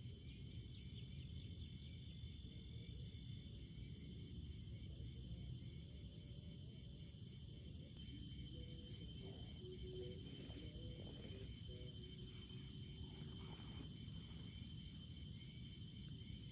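Insects, crickets among them, trilling steadily in a high, rapidly pulsing chorus over a low outdoor hum. Faint softer sounds come in about halfway through.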